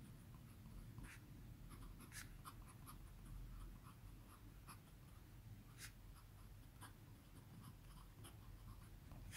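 Fountain pen nib writing on 80 g paper: faint, scattered scratches of short pen strokes.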